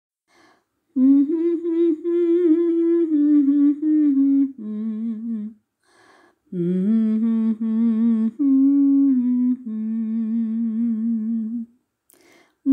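A single voice humming a slow melody in two long phrases of held notes, with audible breaths before and between the phrases.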